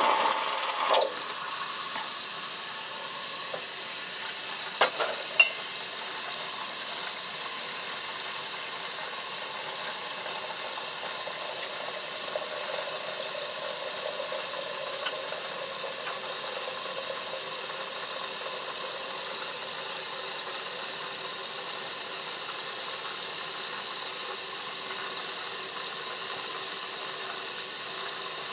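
Schaerer Coffee Factory super-automatic espresso machine running its milk-system cleaning cycle: a steady hiss as cleaning solution and steam are flushed through the milk system, louder for the first second, with a couple of small clicks about five seconds in.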